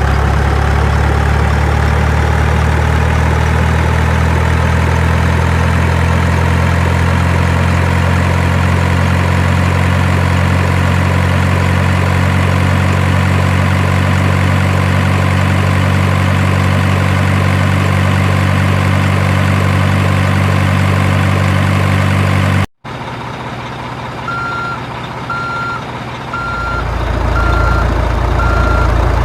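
Heavy truck engine sound from an RC dump truck, running steadily at a low, even note. It cuts off abruptly near the end, and a reversing alarm starts beeping about one and a half times a second over a quieter engine.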